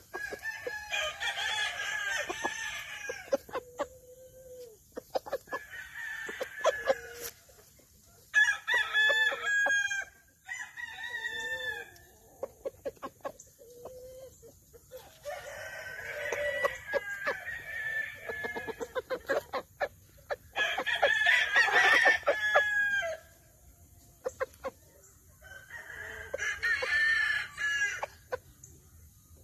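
Roosters crowing again and again, each crow one to three seconds long, with shorter clucking calls in between.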